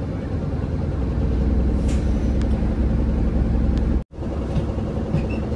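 Route bus heard from inside the passenger cabin: a steady low engine and road rumble. It cuts out completely for a moment about four seconds in.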